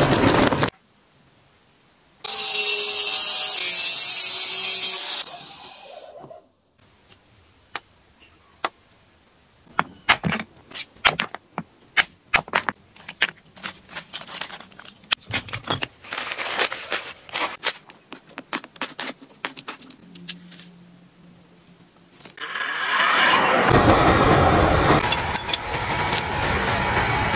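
A loud rushing hiss for a few seconds. Then a long run of sharp wooden knocks and clicks as split firewood pieces are stacked by hand. Near the end, a charcoal forge fire burns with a loud, steady crackling rush.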